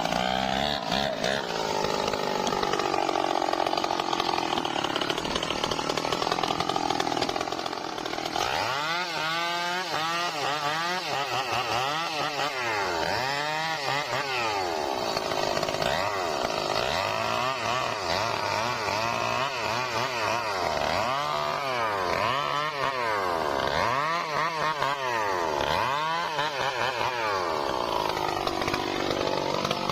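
Stihl MS 382 two-stroke chainsaw cutting trembesi wood: the engine holds a steady high note for about the first eight seconds, then revs up and down again and again, every second or two.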